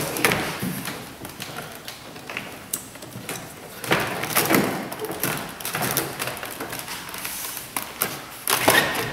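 Plastic car door trim panel being fitted against the door: irregular light knocks, taps and scraping as it is pushed and slid into place, with louder bursts about four seconds in and near the end.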